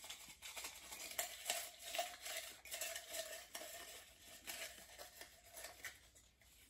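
Fingers stirring through a ceramic mug full of folded paper slips: a faint, busy crackling rustle of paper against paper and the mug, dying away near the end.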